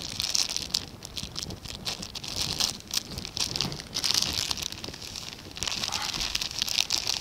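Plastic packet of dry groundbait crinkling and rustling in the hands, in several bursts, as it is emptied over a bucket.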